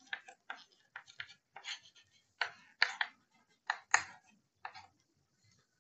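White chalk writing on a green chalkboard: a string of short, irregular taps and scratches as each stroke of the letters is drawn.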